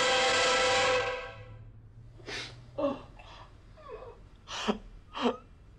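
A music sting fades out within the first couple of seconds. Then a man gives about six short gasping, sniffing breaths, some with a brief whimper, as he strains to force himself to cry.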